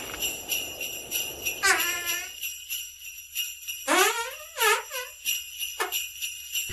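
Jingle bells ringing steadily, with a rough low rasp at the start. Short squeaky sounds slide in pitch about two seconds in and again around four to five seconds in.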